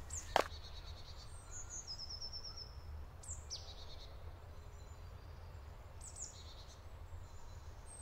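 Woodland birds calling: short high trills and chirps, a few seconds apart, over a low steady rumble, with one sharp knock just after the start.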